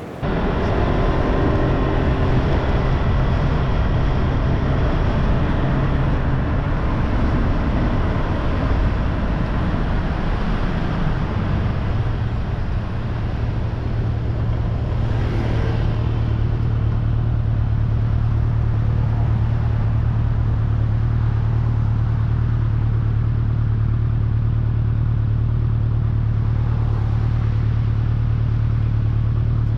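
A motor vehicle running steadily on the road, a continuous low engine drone with road noise. The drone is rougher at first and settles to an even pitch about twelve seconds in.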